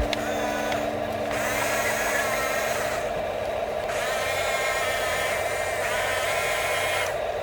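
A small electric motor whirring steadily, its higher whine coming and going every second or two as the load changes.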